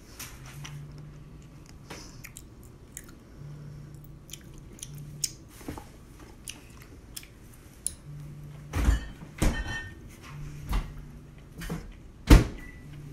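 Chewing of soft Korean rice cakes, with forks clicking and scraping in paper cups. A few sharper knocks come about nine seconds in, and the loudest one about twelve seconds in.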